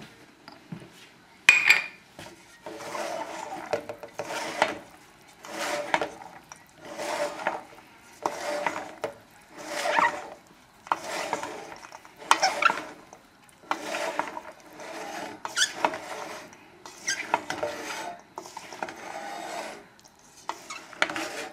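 Wooden spoon stirring and tossing a grain and vegetable salad in a stainless steel bowl, working the oil and citrus dressing through in regular scraping strokes about one a second. A single knock sounds about a second and a half in.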